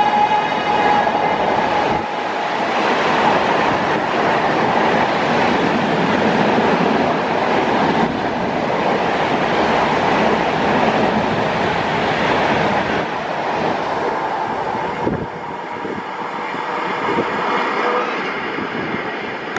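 Passenger train rushing past at about 130 km/h, a steady loud rush of wheels on rail and wind from the coaches. The end of the locomotive's horn blast fades out in the first two seconds, and the noise drops off about fifteen seconds in as the train moves away.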